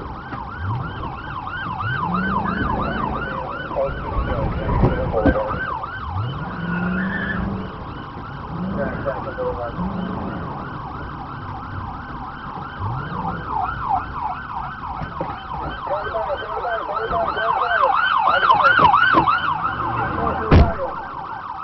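Police car siren on a fast yelp, rising and falling about four times a second, with the pursuing car's engine revving up several times underneath. A single sharp knock near the end.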